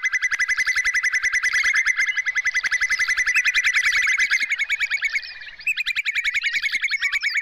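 Whimbrel giving its rippling trill, a long run of quick piping notes about ten a second, breaking off briefly about five seconds in and then starting again.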